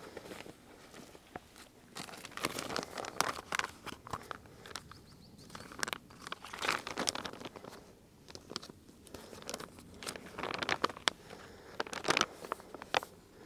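A paper note crinkling and rustling as it is handled and folded, in short irregular spells.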